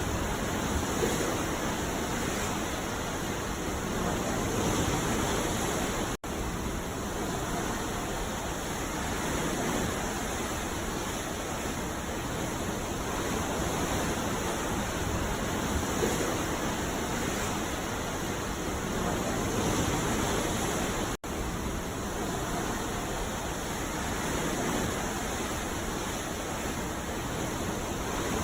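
Ocean surf: a steady rushing wash of waves that swells and eases gently, broken by two split-second dropouts about six and twenty-one seconds in.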